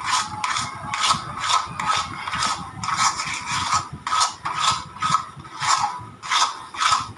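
Thick besan-and-suji sweet mixture being stirred and scraped around a kadhai off the flame, in an even rhythm of about two scraping strokes a second. The stirring lets the steam out so the mixture firms up before it is set.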